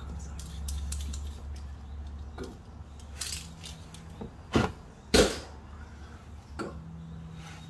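Metal hand tools clinking and clanking as they are picked up and handled, with scattered light clicks and a few sharper knocks, the loudest about five seconds in. A low steady hum fades out in the first two or three seconds.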